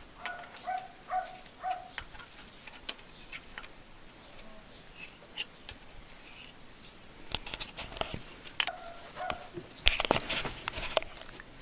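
Hand tools working a tap into a broken bolt in a diesel cylinder head: rows of short squeaks at about two a second with sharp metallic clicks, and a cluster of louder clicks and knocks about ten seconds in.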